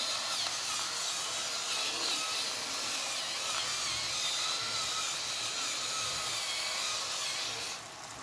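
Pepper mill grinding peppercorns in one steady, unbroken run, stopping shortly before the end; the tomato and chorizo sauce sizzles faintly underneath.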